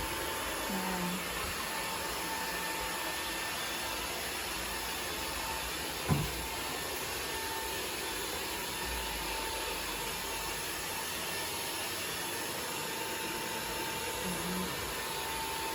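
Cordless stick vacuum cleaner running steadily: an even rush of suction with a thin steady whine over it. A single knock sounds about six seconds in.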